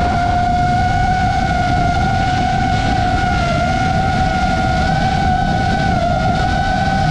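FPV quadcopter's brushless motors whining, a steady high tone that wavers slightly in pitch with the throttle, over low wind rumble on the onboard camera's microphone.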